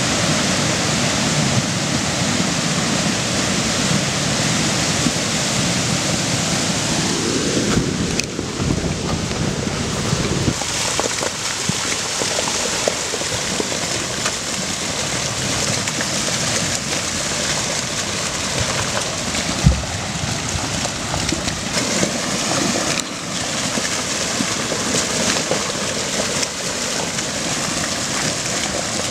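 Debris flow of a mountain torrent: a steady rushing of muddy water carrying rocks. It shifts abruptly twice, and there is a single sharp knock about twenty seconds in.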